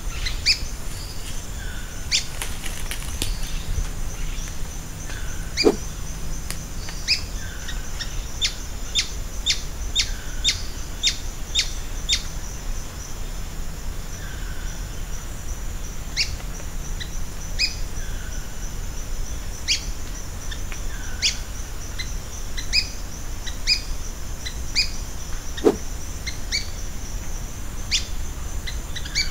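Birds calling: sharp, high chirps come in irregular runs, with a soft lower down-slurred note about every two seconds, over a steady high-pitched drone.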